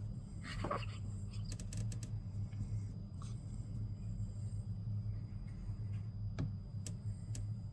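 Steady low hum of room noise with a faint high steady tone, a brief soft sound about half a second in, and a few faint scattered clicks.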